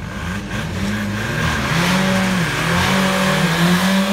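Two tuned 1.9 TDI four-cylinder turbodiesel cars revving hard and pulling away from a standing start. The engine pitch climbs and drops several times, and the sound grows louder.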